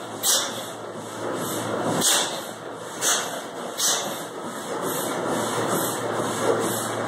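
Large stationary Cooper gas engine running under its own power: a steady mechanical clatter with rhythmic hissing puffs about once a second, quickening in the second half, and two heavy thumps near the start and about two seconds in.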